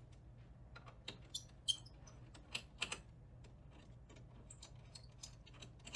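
Faint, irregular small metallic clicks and ticks of a T20 Torx driver loosening the screws that hold the flame ionization detector's castle assembly on a gas chromatograph.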